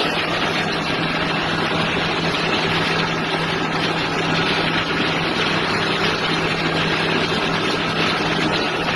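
Brass-cutting lathe running steadily: a constant low motor hum under an even, dense machine noise that does not change.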